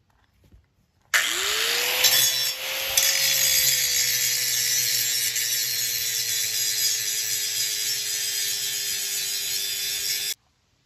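Angle grinder starting up, its whine rising quickly as the motor spins up, then grinding rusty steel on a tank with an abrasive disc, the pitch sagging slightly under load. It cuts off suddenly near the end.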